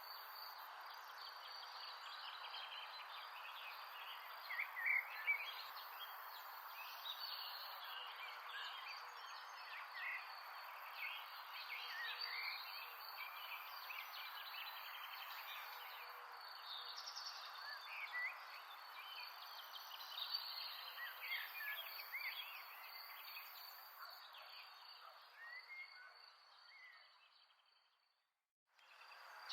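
Outdoor nature ambience: many birds chirping in short calls over a steady background hiss, with a steady high-pitched trill underneath. It all fades out near the end.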